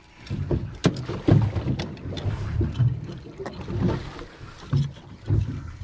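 Water slapping against a small fishing boat's hull in irregular low surges, with wind on the microphone and a few sharp clicks about a second in.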